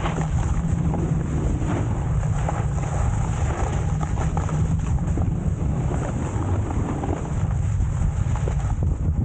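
Wind buffeting the microphone: a steady low rumble under a continuous rushing hiss.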